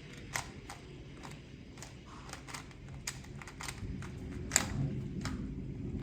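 About a dozen sharp, irregular clicks over a steady low rumble; the loudest click comes about four and a half seconds in.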